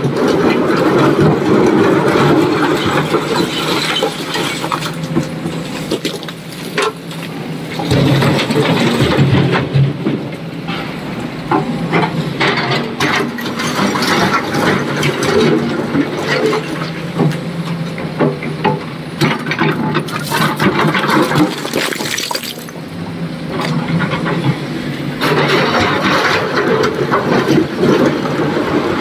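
Excavator's diesel engine running under load while loading stone, with rocks clattering and crashing into a truck's steel tipper body.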